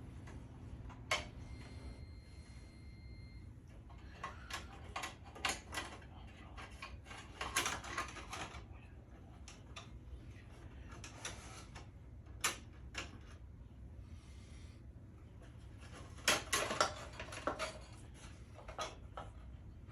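Hands working on a band saw while a replacement blade is fitted: scattered clicks, taps and rustling from handling metal parts, busiest around eight seconds in and again near sixteen seconds, over a steady low hum.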